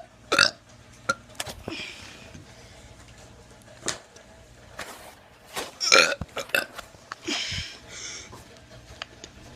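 A teenager burping on purpose: a run of short burps, with a loud one about half a second in and the loudest about six seconds in, and smaller sounds in between.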